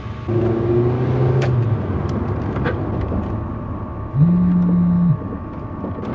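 Car driving along a road, with steady engine and road noise. About four seconds in, a loud, steady low tone sounds for about a second and cuts off.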